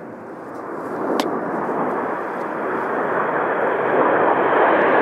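Formation of BAE Hawk T1 jets flying in, their jet noise growing steadily louder as they approach. There is a single sharp click about a second in.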